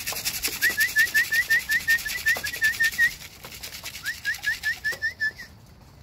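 Rapid whistled call of short high chirps, about six a second, used to call young racing homer pigeons in to the loft. It breaks off for about a second midway, starts again, and stops shortly before the end, with a pigeon's wing flaps near the start.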